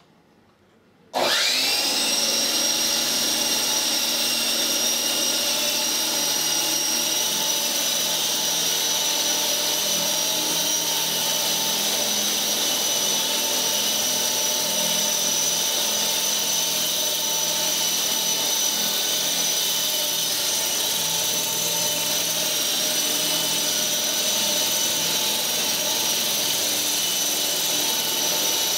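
T-623 Thunderbird RC helicopter's electric motors and rotors starting up about a second in, a whine that rises quickly in pitch and then holds steady as the helicopter flies.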